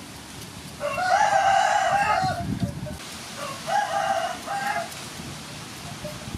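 Rooster crowing twice: a long, loud crow about a second in, then a shorter, fainter one about four seconds in.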